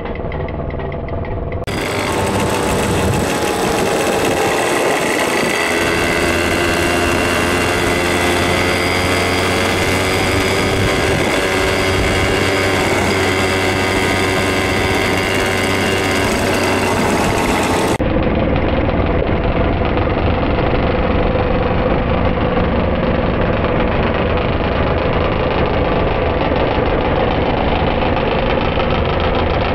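Several small vintage two-stroke moped engines running as a group rides along, their pitch rising and falling with the throttle. The sound changes abruptly about two seconds in and again after about eighteen seconds.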